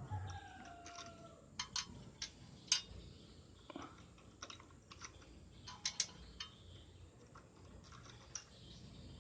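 Scattered small clicks and taps of metal parts being handled and fitted, with bolts and a scroll saw blade clamp being tried for fit. The clicks come in two clusters, a few seconds apart, and a faint falling tone sounds in the first second and a half.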